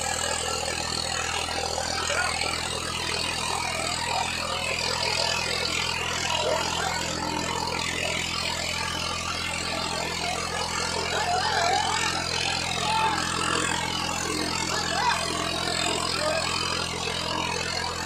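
Swaraj 855 FE tractor's three-cylinder diesel engine running steadily under load as it slowly pulls a train of loaded trolleys, with a crowd's shouts mixed in.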